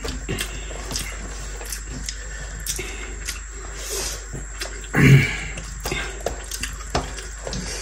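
Close-up eating sounds of rice and curry eaten by hand: wet mouth and lip smacks, chewing, and the soft squish of fingers mixing rice, with many small clicks. A short vocal sound, a hum or brief utterance, about five seconds in.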